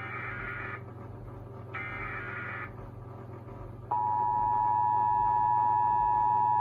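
Emergency Alert System signal: two SAME header data bursts, each a harsh, rapid digital warble about a second long with about a second between them, then a short pause. About four seconds in, the loud, steady two-tone EAS attention signal starts and holds. The header bursts carry the alert's coded data, and the attention tone announces the spoken alert to follow.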